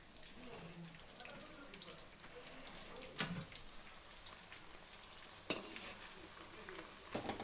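Bhajiya (gram-flour fritters) deep-frying in hot oil in a kadhai: a faint, steady sizzle. A few sharp clicks come about three, five and a half and seven seconds in, the middle one the loudest.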